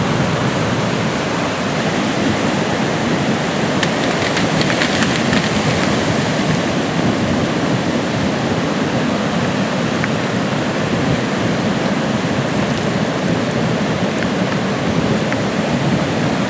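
Fast river water rushing, a steady, even noise with no change.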